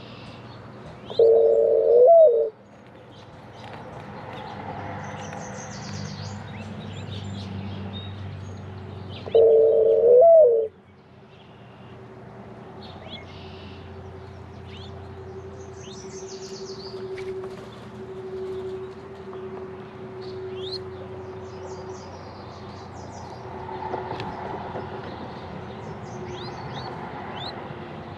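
Mourning dove cooing twice, two short low coos about eight seconds apart, each ending in a quick rise and fall in pitch. Small birds chirp faintly in the background.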